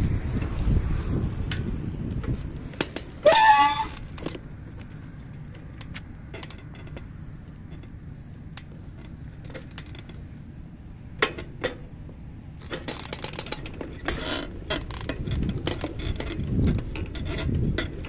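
Wind rumbling on the microphone while riding a two-wheeler along a road, with scattered rattles and clicks from the ride. A short wavering squeal comes about three seconds in. The rumble dies down in the middle as the ride slows, then builds again near the end.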